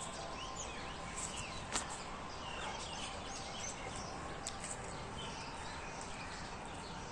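Outdoor ambience of birds chirping on and off over a steady background hum, with one short tap about two seconds in.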